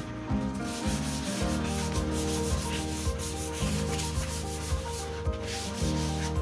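Sandpaper rubbed by hand over a carved Chengal hardwood door panel, in quick, scratchy back-and-forth strokes.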